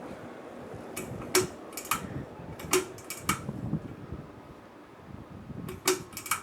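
Ceiling fan running with a steady whoosh, overlaid by a dozen or so sharp clicks in irregular groups of two and three.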